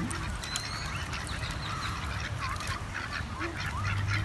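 A small flock of domestic ducks (white Pekins and a brown mallard-type duck) calling with short quacks as they feed, with many quick clicks and ticks among the calls.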